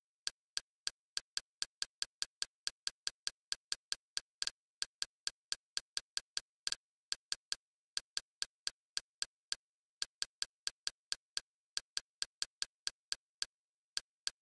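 Kodi menu navigation clicks: one short, sharp click for each step as the selection is scrolled down a list, about three a second, with a few brief pauses.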